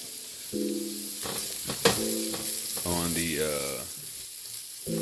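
Chopped shallot and carrots sizzling as they fry in a skillet while being stirred, with one sharp clack of the utensil against the pan about two seconds in.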